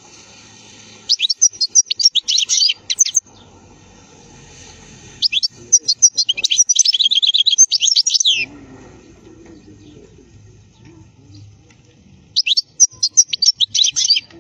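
European goldfinch singing: three phrases of rapid, high twittering notes, each one to three seconds long, separated by short pauses. The middle and longest phrase holds a fast, evenly repeated trill.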